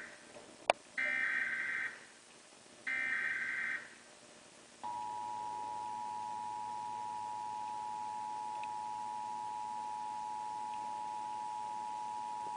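Emergency Alert System test signal: the end of one and then two more short buzzy digital header bursts, each just under a second, with a sharp click between the first two. About five seconds in, the steady two-tone EAS attention signal begins.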